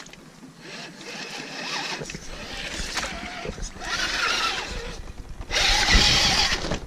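Axial SCX10 II RC crawler's electric motor and geared drivetrain whining under throttle, surging louder twice, about four and six seconds in.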